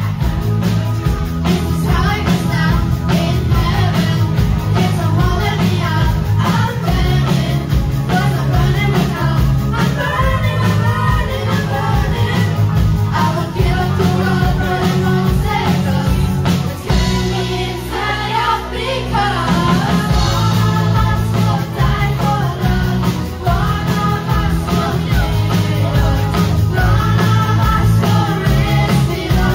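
Live rock-pop band performing a song, with several voices singing together over electric guitars, drums and keyboards. The band thins out briefly about halfway through, then comes back in full.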